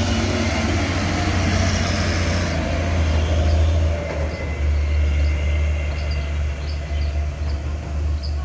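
Diesel engine of a Mitsubishi Fuso dump truck running under load as it passes close and pulls up a steep climb, a steady low drone that eases off and wavers after about four seconds as the truck moves away.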